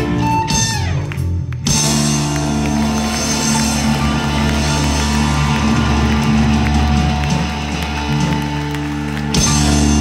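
Live rock band (electric guitars, bass guitar, drums, keyboard and violin) playing the close of a song: a brief break about a second and a half in, then one long held chord, with a louder, fuller burst near the end.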